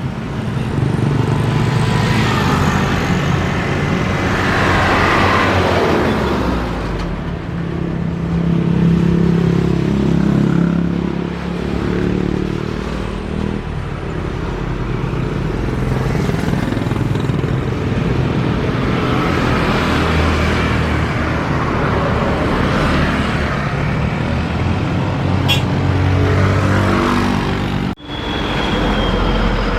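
Road traffic with cars and motorcycles passing close by one after another, each rising and fading. The sound breaks off for a moment near the end.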